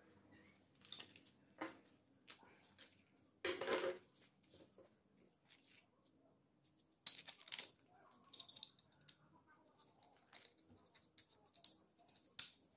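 Plastic phone-charger housing and small parts handled on a wooden workbench: scattered light clicks and knocks, with a louder half-second scraping noise about three and a half seconds in and another short cluster about seven seconds in.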